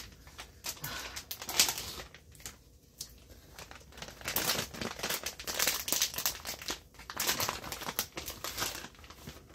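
Plastic bag of shredded cheese crinkling as it is handled, in irregular bursts.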